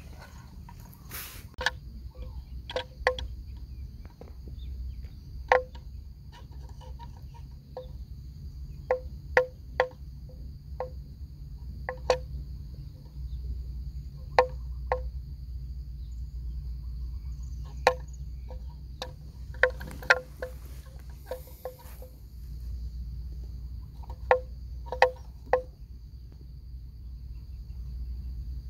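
Water buffalo cropping grass, with sharp irregular snaps every second or so, over a steady high insect drone.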